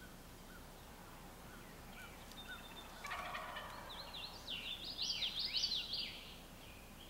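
A wild turkey tom gobbling: a rapid rattling call that starts about three seconds in and stops a little after six seconds, with faint short chirps before it.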